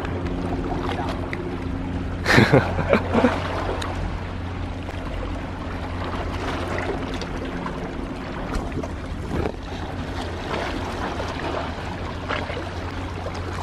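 Steady low drone of a distant engine, such as a work ship or harbour machinery across the water. A man's voice calls out briefly about two seconds in.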